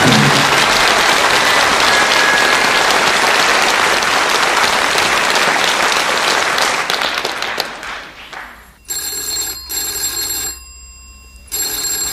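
Studio audience applauding, dying away after about eight seconds. Then a telephone bell rings in a double ring, two short rings close together, with the next double ring beginning at the very end.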